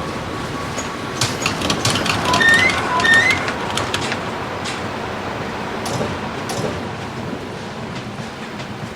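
Tram running on rails, with steady running noise and sharp wheel clicks over the track. Two short high tones sound about half a second apart, around two and a half seconds in. The sound eases off gradually in the second half.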